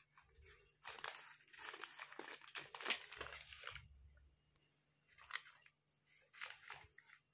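Crinkling of a wrapper crumpled in a toddler's hands: a dense crackle for about three seconds from about a second in, then two short rustles near the end.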